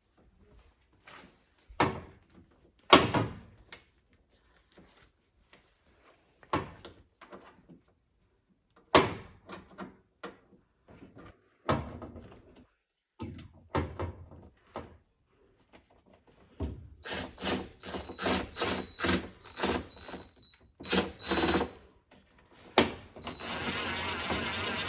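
Hand tools and washing-machine parts being handled while a screw is undone: scattered knocks and clicks, then a run of quick repeated strokes and a steady rasping noise near the end.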